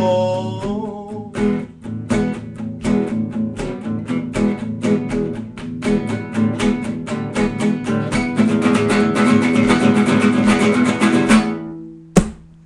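Acoustic guitar strummed in a quick, steady rhythm to close a song, the last sung note trailing off in the first second. The strumming dies away near the end, followed by a single sharp click.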